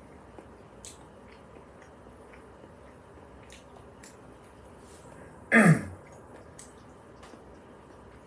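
A single short, loud throat sound from a man about five and a half seconds in, sweeping down in pitch, like a cough or throat-clear. A few faint clicks come before it.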